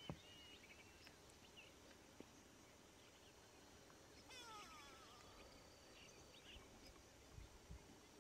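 Near silence: faint outdoor ambience with a few faint bird chirps, including a brief run of quick falling calls about four seconds in.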